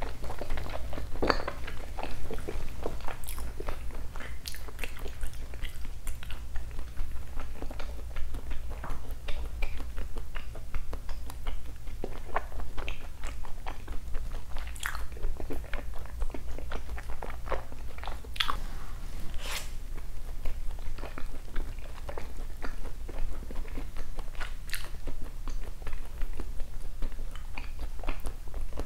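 A person chewing a mouthful of seasoned raw beef (yukhoe) with the mouth closed, close to a collar microphone: a run of small irregular mouth clicks. A steady low hum lies underneath.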